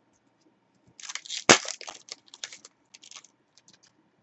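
Foil wrapper of a 2021 Select AFL Footy Stars card pack being torn open, with one sharp snap about a second and a half in. Crinkling follows and thins out by about four seconds.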